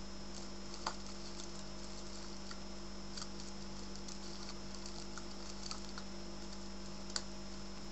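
Faint rustles and small clicks of hands handling a rolled paper-and-foil tube on a tabletop, with two sharper ticks, about a second in and near the end. Under it runs a steady hum with hiss.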